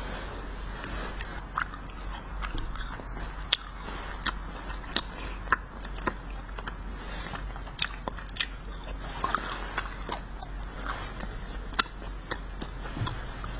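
Close-up chewing of wax-bottle candy: irregular sharp clicks and crunches as the wax is bitten, over a steady low hum.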